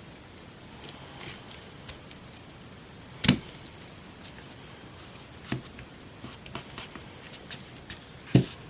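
Hands handling paper for a collage at a tabletop: light rustling and small clicks, with a sharp tap about three seconds in and quieter taps later, as things are picked up and put down.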